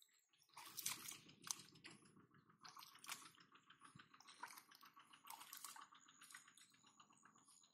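Hands squelching and splashing in shallow muddy water: a run of irregular wet slaps, squishes and drips that begins about half a second in.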